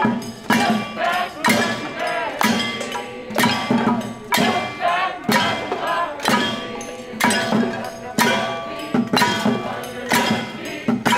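Protest crowd beating pots, pan lids and tin cans with spoons and sticks as noisemakers, in a rough steady beat of about one strong clang a second with lighter hits between. The metal rings on after each strike.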